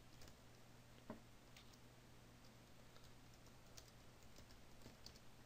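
Faint computer keyboard typing: scattered single keystrokes at an irregular pace, over a low steady hum.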